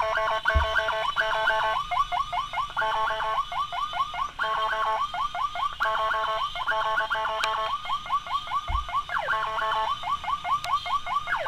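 Electronic emergency siren switching back and forth, about once a second, between a steady multi-tone blare and a fast yelp of quick rising chirps, about five or six a second. A slower sliding siren tone drops in pitch about nine seconds in.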